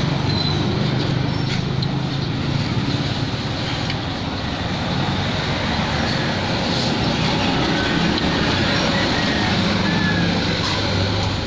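Steady rumble of motor vehicles and road traffic with a low engine hum.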